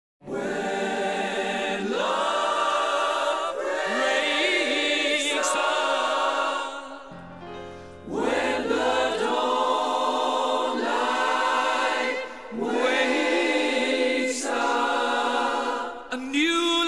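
Background music: a group of voices singing held chords, a cappella style, in short phrases of about two seconds each.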